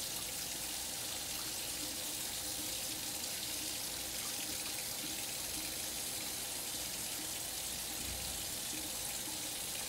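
Tap water running in a steady stream into a stainless steel sink while hands are lathered under it.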